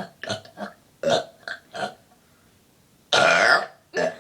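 A person burping: a few short throaty sounds, then one loud burp lasting about half a second, three seconds in.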